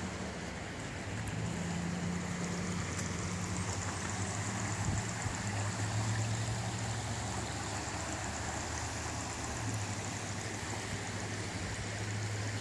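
Floodwater rushing steadily across a flooded river access, with a low steady hum underneath.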